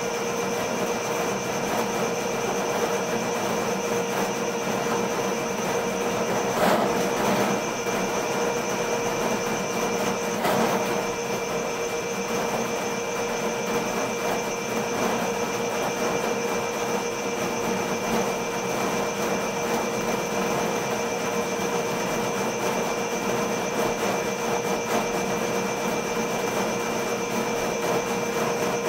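RIDGID K-50 sectional drain-cleaning machine running steadily, its motor whining as the spinning cable is fed into a blocked floor drain. There are two brief knocks, about seven and ten seconds in.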